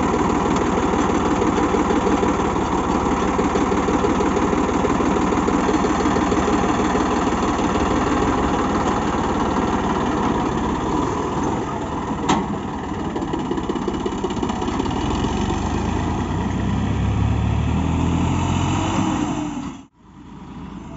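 Massey Ferguson 9500 tractor's diesel engine running steadily under load while pulling a cultivator through soil. Its note rises near the end, then cuts off abruptly and a fainter engine sound follows.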